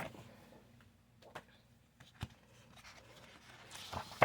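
Sheets of scrapbook paper being handled and turned over: faint rustling with a few light taps.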